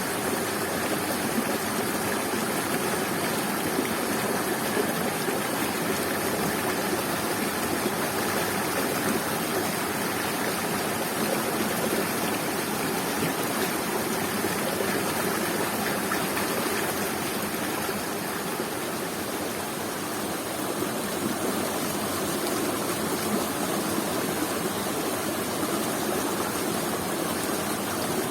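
Waterfall: water falling and rushing steadily.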